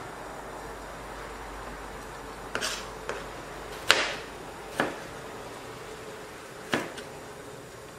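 Chef's knife chopping cucumber into thin strips on a plastic cutting board: about five separate, irregular knocks of the blade against the board, starting a couple of seconds in, the loudest about four seconds in.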